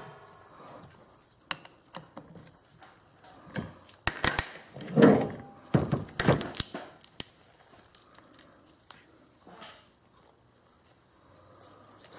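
Handling noises from a heavy steel collet chuck and a hex key on a plastic tray: scattered clicks, knocks and scrapes as the parts are worked and the chuck is turned over, loudest about four to seven seconds in.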